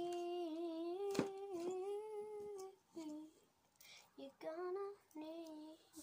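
A girl humming a tune without words: one long held note that bends slightly in pitch, then a few shorter hummed notes toward the end. A single sharp click about a second in.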